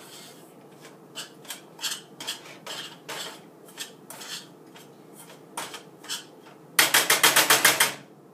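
Metal spoon scraping and clinking against a stainless steel skillet while stirring flour, sugar and cocoa into melted butter: separate strokes about twice a second, then near the end a noisy, fast clatter of about ten strokes a second for just over a second.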